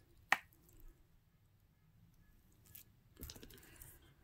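Quiet handling noise from jewelry being moved about: one sharp click about a third of a second in, then soft rustling and scraping near the end.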